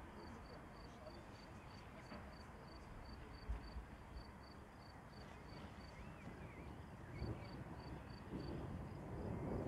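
An insect chirping steadily in a high, even pulse of about three to four chirps a second, over a faint low rumble. In the last two or three seconds a deeper rumble of distant thunder builds up.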